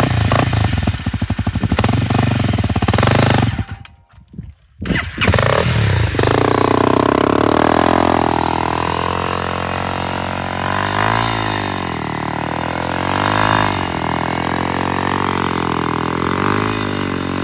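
Honda CRF dirt bike engine revving hard while its rear wheel spins in soft sand, digging in and throwing up sand as the bike stays stuck. The engine note wavers up and down, with a brief break about four seconds in.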